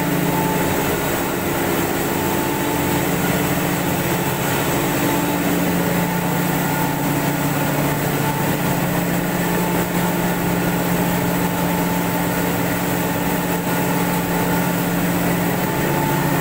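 Grain-cleaning and flour-milling machinery running steadily: an even, loud machine hum with a rushing noise over it that doesn't change.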